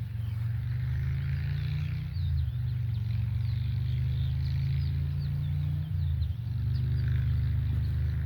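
A steady low motor hum, its pitch dipping briefly about two seconds in and again about six seconds in, with faint short bird chirps above it.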